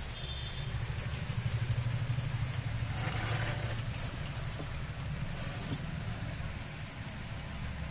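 Low, steady rumble of a vehicle engine running in street traffic.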